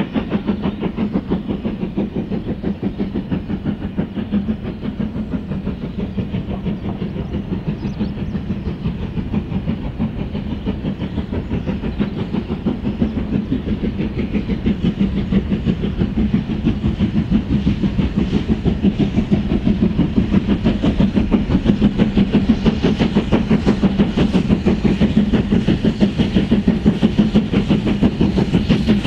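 Preserved British steam locomotive hauling a goods train, with a fast, steady pulsing rhythm that grows louder toward the end.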